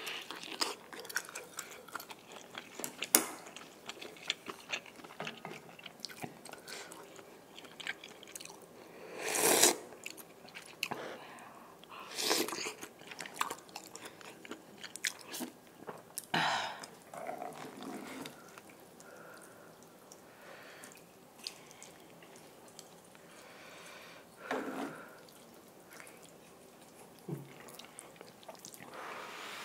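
Close-up eating sounds of a person eating spicy mala noodle soup: steady chewing and biting of noodles and toppings, broken by several loud slurps.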